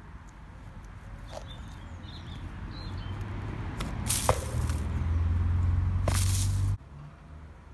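Two short swishing rustles, about two seconds apart, as patent-leather pumps are kicked and flicked across dry grass. Under them a low rumble builds up and cuts off suddenly shortly before the end.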